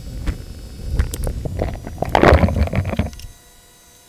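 Handling noise right at the microphone as the camera is moved: a low rumble with rubbing, scrapes and light knocks, loudest about two seconds in, then cutting off abruptly about three seconds in.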